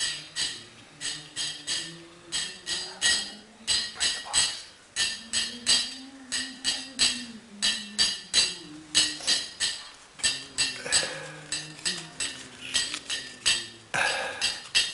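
Kirtan: small hand cymbals (kartals) struck in a steady repeating rhythm of several ringing clashes a second, under a man's voice chanting in long held notes that slowly rise and fall. Near the end a louder metallic clank cuts in, like a steel pail being handled.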